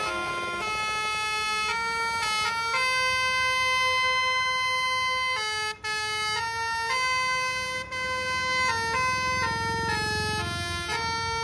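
Telolet basuri multi-tone horn playing a tune: a loud chain of held notes stepping up and down in pitch. It breaks off briefly about six seconds in.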